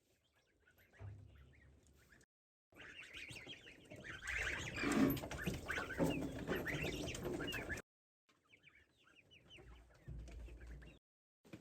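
Chickens clucking, many short calls in a row, in three stretches that cut off abruptly, the middle one the loudest.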